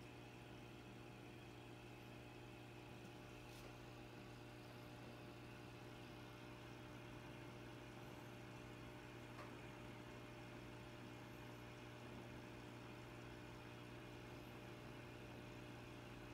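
Near silence: a faint, steady low hum over a soft hiss, with two faint ticks, one a few seconds in and one near the middle.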